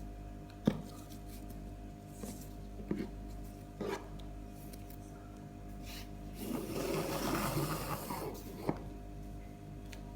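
Box and packaging being handled: a few light knocks and clicks, and about two seconds of rubbing and rustling past the middle, over a steady low hum.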